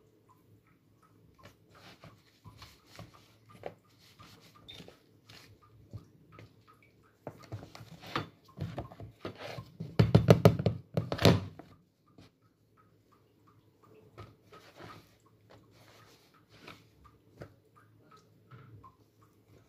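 Hands dredging pork chops in a flour-and-cornstarch coating in a plastic tub: soft scattered pats, rustles and small knocks, with a louder run of thumps and rubbing on the tub about eight to eleven seconds in.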